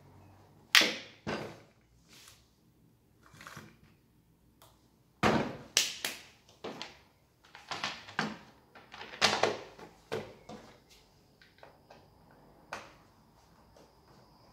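Irregular knocks, clunks and plastic clatter of a chainsaw being handled and set down on a wooden workbench while its plastic top cover is fitted. The loudest knocks come about a second in, around five to six seconds in and around nine to ten seconds in.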